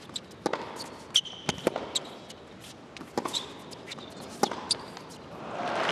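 Tennis rally on an indoor hard court: sharp racket strikes and ball bounces every half second to second, with sneaker squeaks on the court between them. Applause swells near the end as the point is won.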